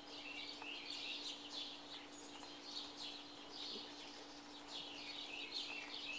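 Birds chirping and calling repeatedly, short high calls about once or twice a second, some falling in pitch, over a faint steady hum.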